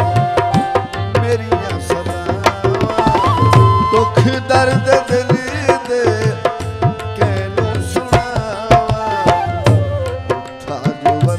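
Tabla playing a quick, steady rhythm with a gliding melody line over it: an instrumental interlude between sung verses of a Punjabi folk song.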